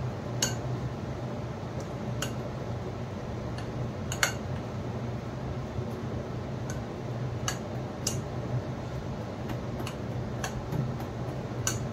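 Thick urad dal batter being beaten and stirred round in one direction in a bowl, with sparse, irregular clicks and clinks against the bowl over a steady low hum.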